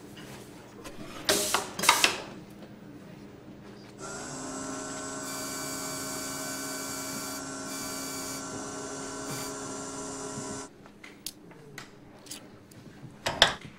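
A few sharp clicks of small metal tools, then the small electric motor of a watchmaker's bench machine runs steadily for about seven seconds, with a hiss while a hand-held tool is pressed to the spinning wheel that breaks off briefly a few times. The motor stops suddenly and a couple more clicks follow near the end.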